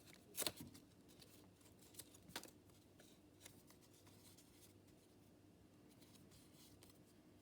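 Brown paper being handled at a craft table: a few short rustles and taps, the loudest about half a second in, then near silence.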